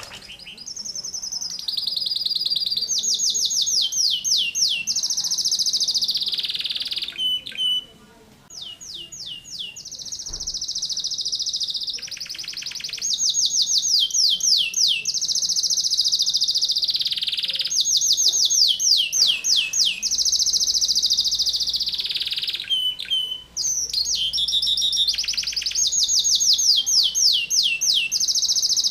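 Domestic canary singing in long, insistent phrases of rapidly repeated, tightly packed notes and fast rolling trills. The song pauses briefly about a quarter of the way in, then runs on.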